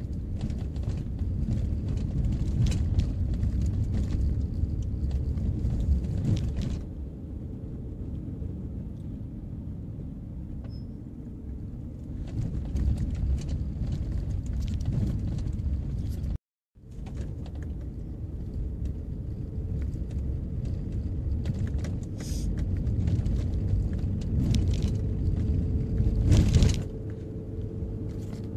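Steady low rumble of a car driving along a mountain road: engine and tyre noise. It cuts out completely for a moment a little past halfway, and there is a brief louder surge near the end.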